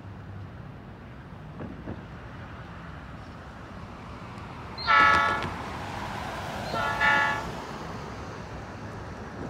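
Locomotive horn sounding two short blasts about two seconds apart, the first louder, over a low background rumble.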